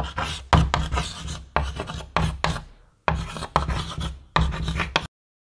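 Chalk scratching on a blackboard in a run of short strokes as letters are written, with a brief pause about three seconds in. It stops abruptly about five seconds in.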